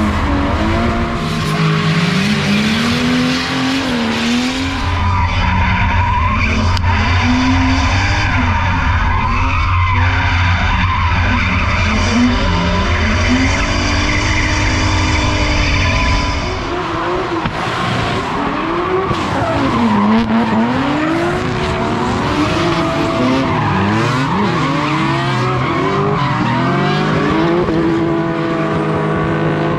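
BMW drift car engines revving hard, their pitch rising and falling over and over as the throttle is worked through slides, with tyres screeching as the cars drift.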